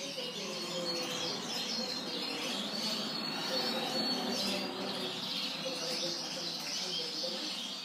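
Gibber Italicus frill canary singing: a continuous stream of rapid, high chirps and trills.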